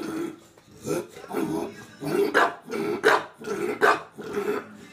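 English bulldog giving a string of about seven short barks, one every half second or so, begging for a marshmallow held up in front of her.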